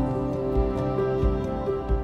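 Background music: sustained instrumental notes over a soft, regular low beat.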